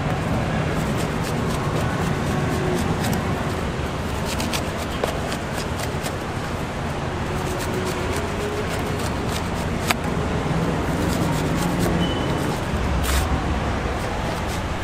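A knife scraping and clicking against the fibrous flesh of a halved jackfruit as it is cut apart, in scattered short sharp strokes over a steady hum of traffic and street-market noise.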